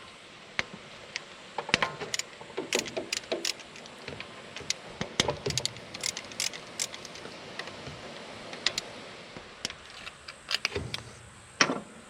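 Irregular sharp metallic clicks and clinks of a wrench working on the bolts that hold an engine's camshaft gear, with a louder knock near the end.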